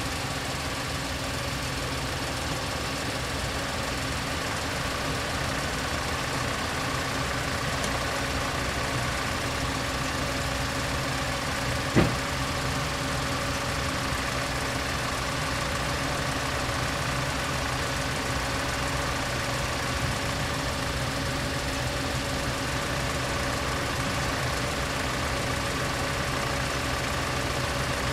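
Van engine idling steadily close by, with one sharp click about twelve seconds in.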